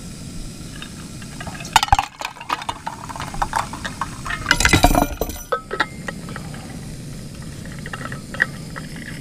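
Cookware and utensils clinking and clattering on a camp cookstove, with the loudest clatter about two seconds in and again around five seconds in, over a steady low hiss.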